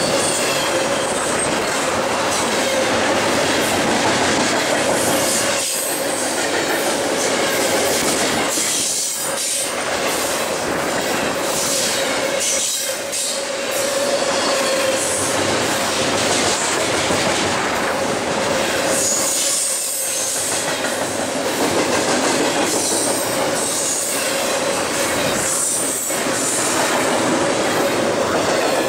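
Double-stack container freight cars of a BNSF train rolling past at speed: a continuous rumble and rattle of steel wheels on rail with clickety-clack over the joints, and a steady ringing tone from the wheels. The sound dips briefly several times.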